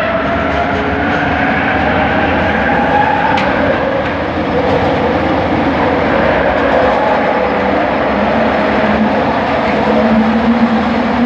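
Bombardier Innovia ART 200 train running, with the whine of its linear induction motor over the rumble of the wheels on the track. The whine rises slowly in pitch over the first few seconds as the train picks up speed, and a lower steady tone comes in near the end.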